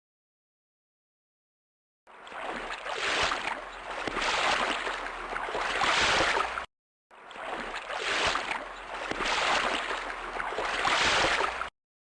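Water splashing and sloshing in three surging swells, played twice with a short break between.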